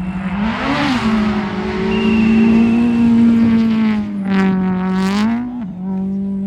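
Rally car's engine at high revs on a gravel stage. Its pitch climbs about a second in, holds high, then drops, and gives a short rise and fall again about five seconds in.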